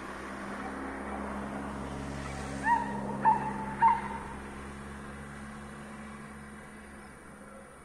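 Three short pitched calls from an animal, a little over half a second apart, over a steady low rumble that swells and then fades.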